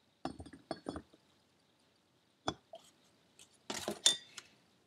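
Metal clinks and knocks as a TD04 turbo's bearing housing and compressor wheel are set down into the aluminium compressor housing and shifted to seat it: a quick cluster of clinks near the start, a single one about halfway, and a louder cluster near the end.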